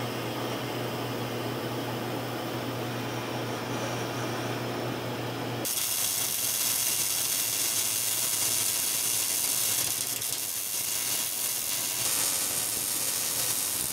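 A steady low hum, then about six seconds in a welding arc strikes and runs with a constant crackling hiss: wire-feed arc welding laying hard-facing beads of Hobart Fabtuf 960 hard-surfacing wire on the edge of a steel earth-auger flighting.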